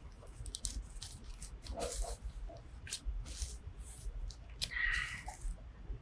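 White protective wrapping rustling and crinkling in irregular bursts as a keyboard is pulled out of it and handled.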